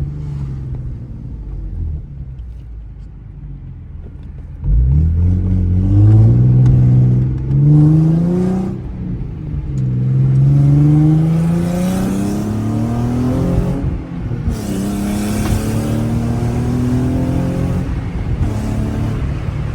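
Nissan 370Z's 3.7-litre VQ37VHR V6, running catless through test pipes, loud. It runs steadily at first, then about five seconds in its pitch climbs for several seconds, drops sharply, climbs again, and settles into a steadier drone with a hiss over it for a few seconds.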